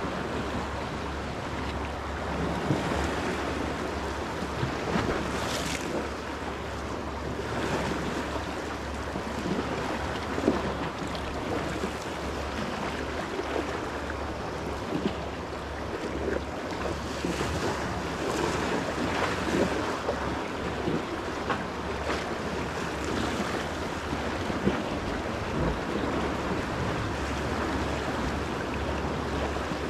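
Sea waves washing against shore rocks in a steady rush, with wind buffeting the microphone as a constant low rumble; a few brief louder surges of water stand out.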